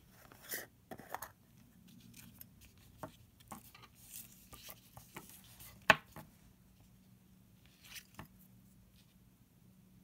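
Plastic screw-top jar being unscrewed and its lid set down on a hard tabletop: soft scraping and rustling, small clicks from the lid, and one sharp click about six seconds in.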